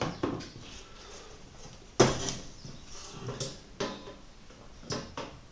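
Hard clicks and knocks from an electronic device being pressed and worked onto its base plate, trying to clamp it down; the loudest knock comes about two seconds in, with several lighter clicks around it. The device is not clamping down.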